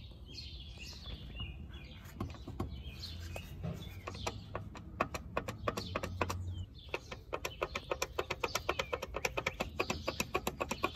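Rapid clicking and knocking from a Volvo V50 T5 AWD's original front driver's side CV axle being shaken back and forth by hand. The clicking quickens to about five or six clicks a second in the second half, with faint high chirps in the first few seconds. It comes from the axle's movement and play, which the owner says is normal: nothing wrong with the axle.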